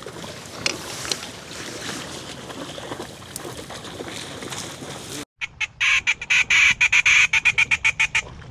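A steady outdoor hiss of wind and marsh noise. After an abrupt break about five seconds in, a duck call is blown loudly in a fast run of about twenty short quacking notes, several a second, to call in incoming ducks.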